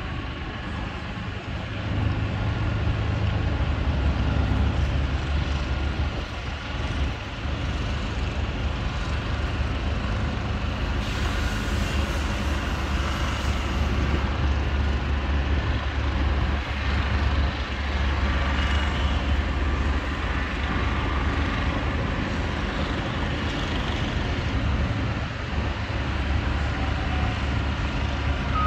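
A heavy vehicle's engine running with a steady low rumble, which grows louder about two seconds in.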